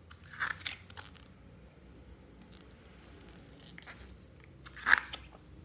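Photobook pages being turned by hand: a few short papery swishes, the loudest near the end.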